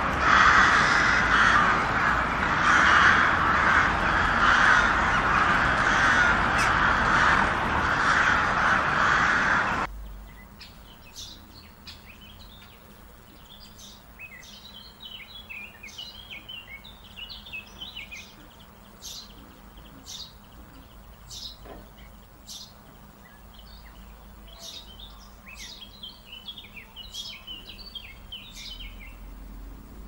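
A flock of crows cawing all at once in a loud, dense chorus that cuts off abruptly about ten seconds in. After that, much quieter short, high chirps and twitters of small songbirds.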